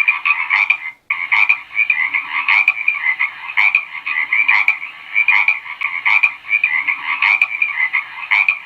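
A chorus of frogs croaking: many overlapping rapid calls, with a sharper click-like call about once a second. The sound cuts out for a split second about a second in.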